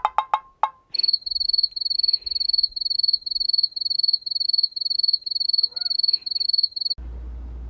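A few ringing chime notes die away. Then a high-pitched chirping repeats about three times a second for some six seconds and stops suddenly, giving way to a low steady hum.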